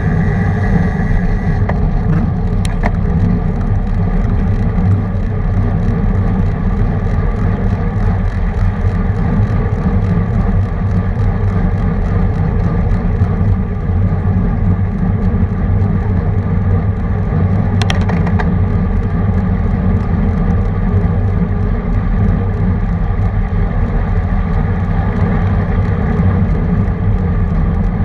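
Steady wind rush over a bike-mounted camera's microphone while racing a road bike at speed, with road noise underneath. Two brief sharp clicks, one a few seconds in and one about two-thirds of the way through.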